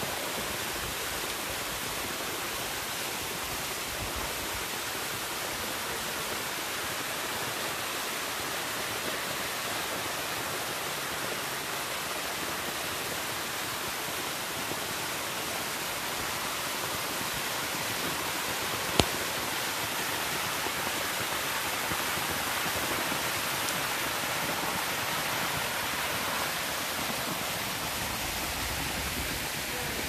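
Waterfall cascading thinly over a mossy rock face and splashing into a shallow pool, a steady rushing hiss. A single sharp click about two-thirds of the way through.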